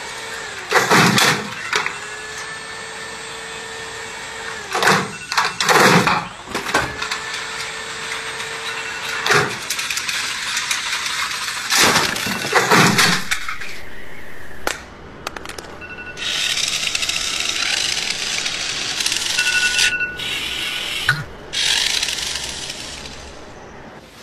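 Homemade chain-reaction contraption of wooden ramps and levers running: a string of sharp knocks and clatters, then, later on, several seconds of steady hissing broken by short gaps.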